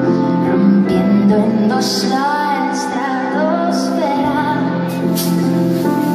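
A woman singing live over sustained chords from a Nord Electro 5 stage keyboard.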